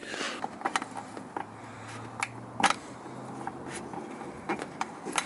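Scattered light clicks and taps at irregular spacing, from hand work tightening down roof rack hardware on an SUV roof.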